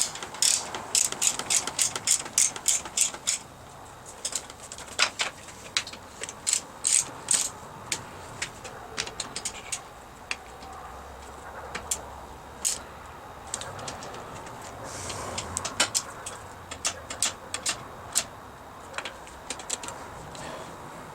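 Hand ratchet clicking in short quick runs, with pauses between, as the handguard mounting bolts are tightened down.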